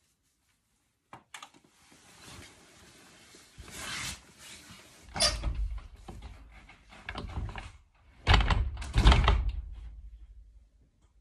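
Rustling and bumping handling noise, with heavy dull thumps about five seconds in and again near the end.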